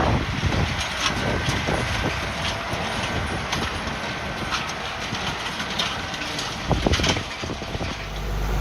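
A vehicle running, with scattered knocks and rattles, a cluster of them about seven seconds in; a steadier engine hum sets in near the end.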